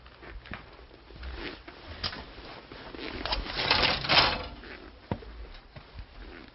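Rapid clicking and rattling of movement and handling in a derelict house, likely footsteps over debris, densest and loudest about three to four seconds in. A single sharp knock comes about five seconds in.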